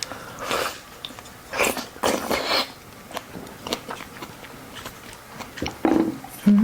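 Close-up eating sounds of someone biting and chewing oysters, with a few short noisy bursts and small clicks, then a brief low hum near the end.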